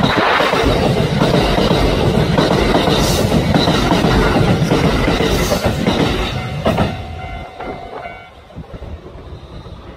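Kintetsu electric train passing through without stopping, its wheels clattering on the rails with a few sharp clicks; the sound of the train dies away about seven seconds in.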